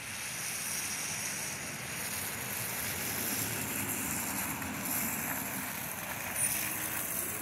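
Gillig low-floor city bus approaching and pulling up, its engine running and its tyres hissing on the rain-wet road, growing louder over the first couple of seconds as it nears.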